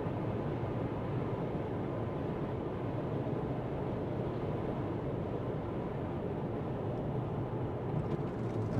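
Steady hum of a car driving: engine and road noise with no sharp impacts.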